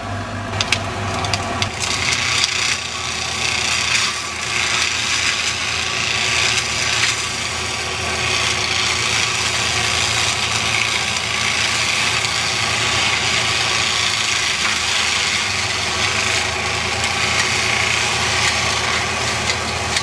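Road-rail excavator's engine running steadily under a harsh, continuous scraping and grinding noise from an attachment at work, with a few sharp clicks in the first two seconds.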